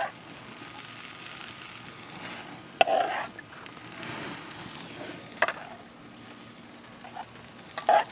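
Buttery sauce sizzling as it is spooned onto artichokes charring on a hot grill, a steady hiss with two sharp clicks about three and five and a half seconds in.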